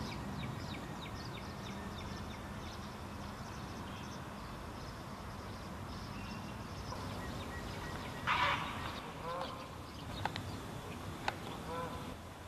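Great blue herons calling at a nesting colony: one loud, harsh squawk about eight seconds in, then a few shorter croaks and two sharp clicks, over a steady low background rumble.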